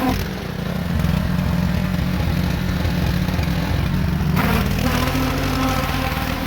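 An engine running steadily, with a short hissing rush a little over four seconds in.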